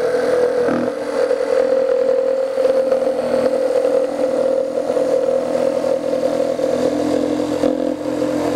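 Metabo HPT CR18DAQ4 18-volt cordless one-handed reciprocating saw running with a jigsaw blade, cutting through plywood: a steady buzzing motor note with the rasp of the blade in the wood.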